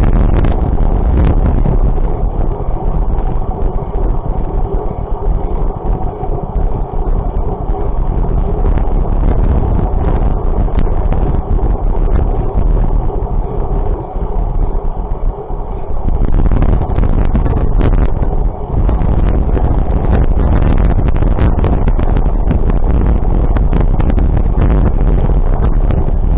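A vehicle running along a road, with a loud, steady rumble of wind on the microphone.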